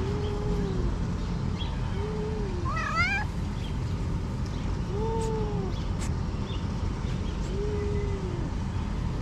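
Stray domestic cats meowing: four drawn-out meows, each rising and then falling, a couple of seconds apart, with a quick run of rising chirps about three seconds in, over a steady low rumble.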